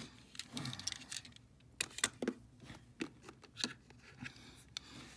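Small 1:64 die-cast metal toy cars being handled: irregular light clicks and rattles, loudest about two seconds in.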